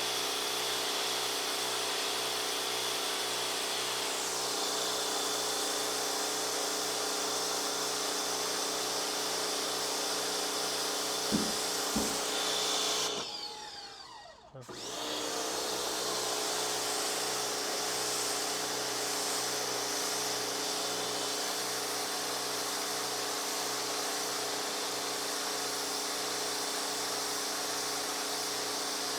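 Pressure washer running steadily with a hiss of spray. About halfway through, two clicks sound, then the motor briefly winds down and comes back up to speed.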